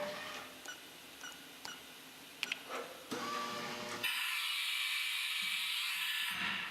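Haas VF-4 CNC vertical mill working: small mechanical clicks and short whirs, with a sharp click about two and a half seconds in. A loud, steady hiss starts about four seconds in and stops after about two seconds.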